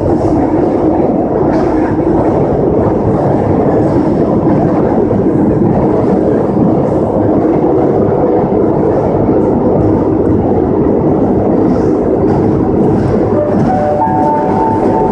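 Madrid Metro 6000-series train running through a tunnel, heard from inside the car as a steady, loud rumble of wheels and running gear. Near the end a short series of tones steps upward in pitch.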